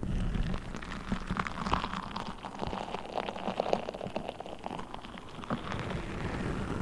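Orange Orbeez water-gel beads being handled, giving a dense, irregular run of many small wet clicks and patters.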